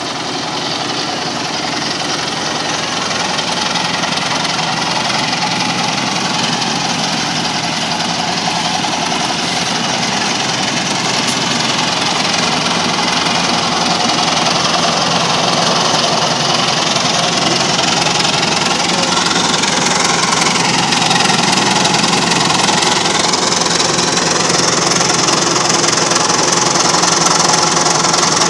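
A farm machine's engine running steadily at an even speed, growing gradually louder.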